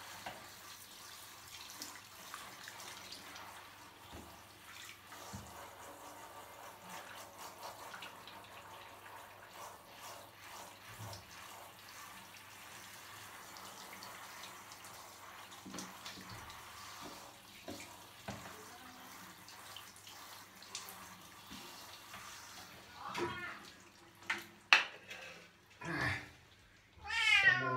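Handheld shower head spraying warm water over a wet cat's fur, a steady hiss of running water. Near the end the spray stops, there is a sharp knock, and the cat meows several times.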